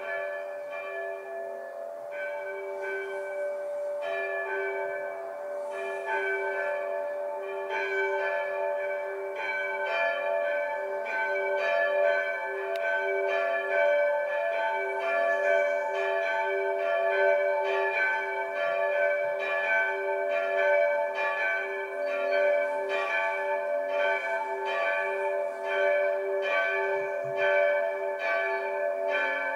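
Church bells pealing from a bell tower, with repeated overlapping strikes. They start abruptly and grow louder and fuller over the first ten seconds or so, then keep up a steady peal.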